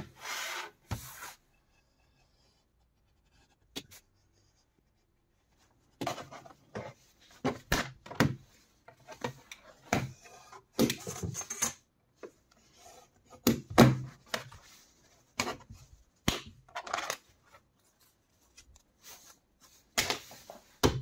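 Hand-work on a Kydex sheet on a plywood workbench: scattered clicks and taps of the plastic sheet and a steel ruler being set down, with short scraping strokes of a blade scoring the Kydex along the ruler. A sharp tap of the plastic pieces on the wood comes near the end.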